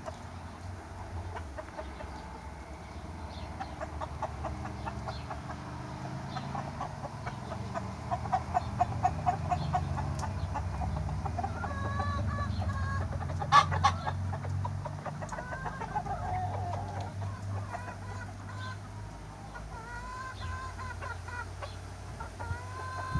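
Chickens clucking: a quick run of rapid clucks for several seconds, then longer drawn-out calls from hens and roosters. A single sharp click about halfway through is the loudest moment.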